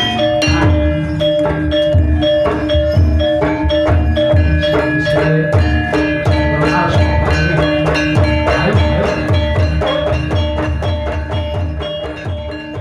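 Javanese gamelan music accompanying an ebeg (kuda lumping) dance: a fast, driving drum pattern under repeated strikes of tuned metal mallet instruments. It starts to fade near the end.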